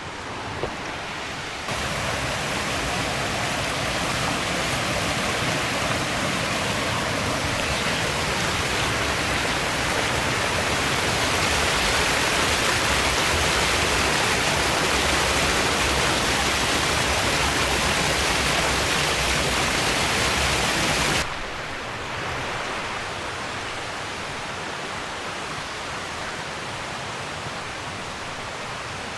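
Steady rush of water from a waterfall or fast mountain stream. It gets louder about two seconds in and drops off abruptly about three quarters of the way through, then carries on more quietly.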